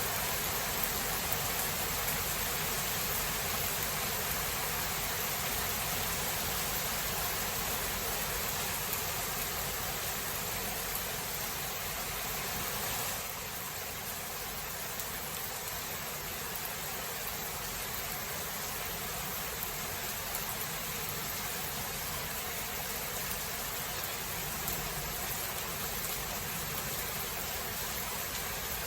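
Steady rain, an even hiss with no thunder clap, dropping slightly in level about 13 seconds in.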